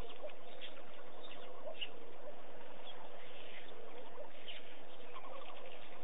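A busy chorus of many birds chirping and calling, with short calls overlapping throughout.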